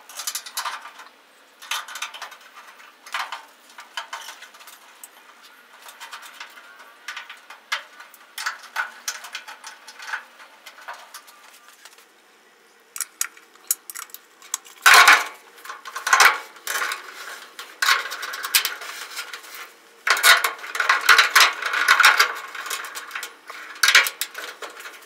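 Small metal parts and hand tools clinking and rattling as turn-signal and running-light housings and their screws are fitted into the front lip of a truck hood. The clatter comes in scattered clicks, with louder bursts about fifteen seconds in and again from about twenty seconds.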